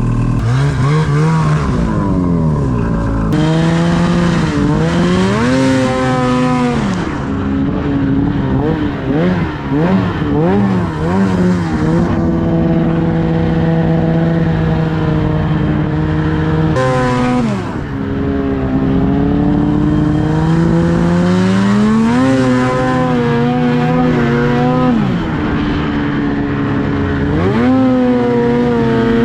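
Ski-Doo snowmobile engine running hard, its pitch climbing and dropping back again and again as the throttle is opened and eased off. It holds a steady high note for several seconds in the middle, then falls away once and revs up again.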